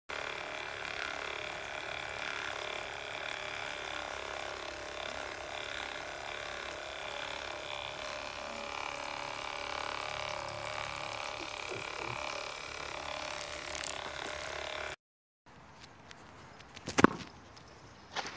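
Small handheld electric appliance running steadily: a motor whine over a steady hiss. It cuts off suddenly about fifteen seconds in. A single loud, sharp thump follows about two seconds later, and a softer knock comes near the end.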